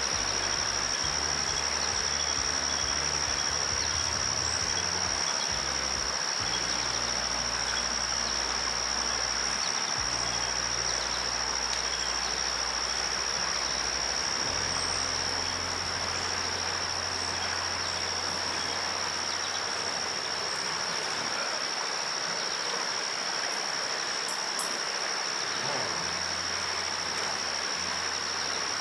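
Insects droning on one steady high note over the rush of river rapids.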